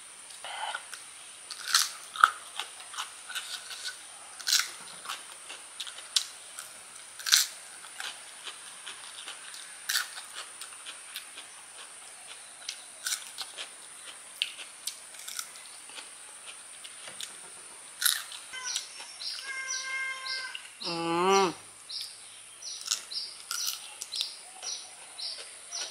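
Close-up crunching and chewing of raw peeled kedondong (ambarella) fruit, in sharp, irregular bites. Near the end a bird chirps in quick repeated high notes, with a short warbling call among them.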